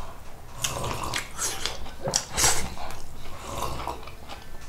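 Close-miked eating: a person chewing and biting food with wet mouth smacks and crunches, coming irregularly.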